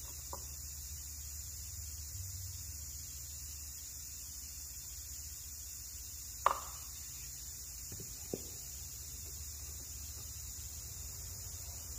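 Low steady workshop hum with one sharp knock about six and a half seconds in and two light knocks about two seconds later, from a glue brush and pine boards being handled on a wooden workbench.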